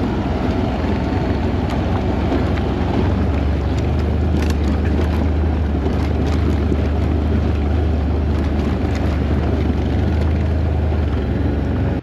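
ATV engine running at a steady low drone while riding, with wind buffeting the microphone.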